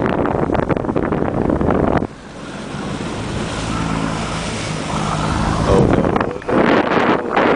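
Wind buffeting the microphone of a parasail rider, dropping away suddenly about two seconds in to let a steady engine hum from the motorboat below come through, before the wind buffeting returns near the end.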